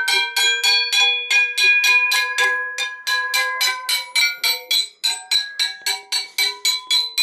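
A steel treadmill roller axle being tapped with a hammer about three times a second to drive it through the roller's new bearings. Each blow makes the rod ring like a bell with several clear tones, and the ring shifts slightly in pitch as the axle slides along.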